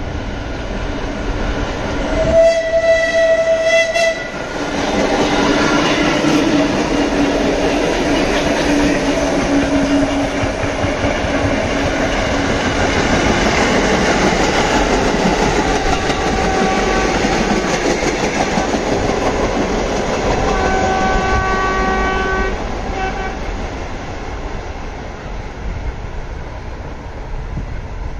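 Vintage New York City subway train passing close by. Its horn sounds for about two seconds, starting about two seconds in. The cars then roll past with loud, steady wheel and running noise, a second horn-like blast comes about twenty-one seconds in, and the sound then fades away.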